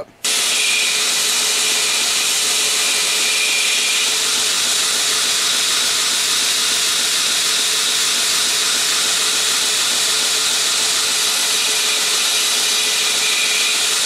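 2x72 belt grinder running a 120-grit belt over a small wheel while a knife backspacer is ground against it to fine-tune and clean up its inside edge: a steady hiss with a faint hum, cutting in abruptly just after the start.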